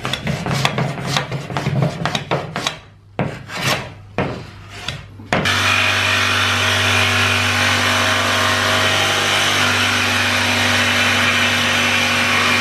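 A hand tool is rubbed in quick, irregular strokes along the edge of a plywood sheet. About five seconds in, a cordless jigsaw starts and runs steadily, cutting through the plywood.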